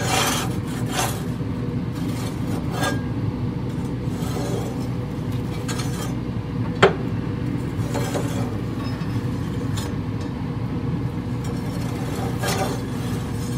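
Metal pizza spatula scraping and clinking against the grill grates of a Yoder YS640 pellet cooker as pizzas are slid around and rotated, with scattered clinks, the sharpest about halfway through, over a steady low hum.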